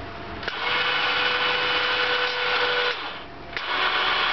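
Small electric winch motor running the mill's roller toe boards: it switches on with a click, whines steadily for about two and a half seconds, stops, then clicks on and runs again near the end.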